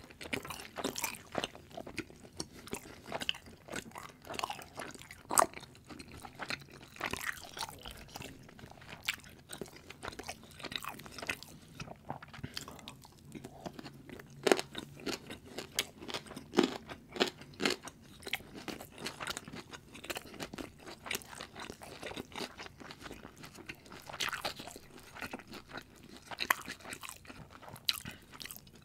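Close-miked eating: irregular chewing, crunching and mouth sounds, with a knife and fork tapping and scraping on a wooden board.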